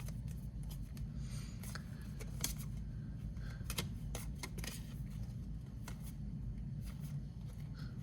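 Football trading cards being handled and flipped through, giving irregular short clicks and papery rustles as cards slide and snap against each other, over a steady low hum.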